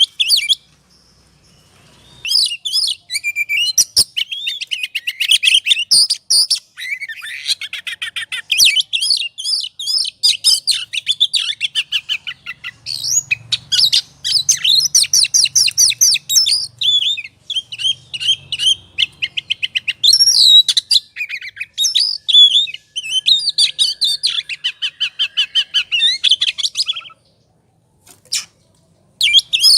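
Oriental magpie-robin (kacer) singing an agitated 'ngobra' song: a fast stream of varied high notes and trills. It breaks off briefly about a second in and again near the end.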